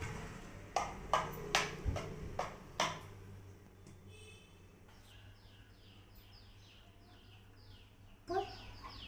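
About six sharp knocks or clinks in the first three seconds, then a bird chirping a quick series of short, falling high notes.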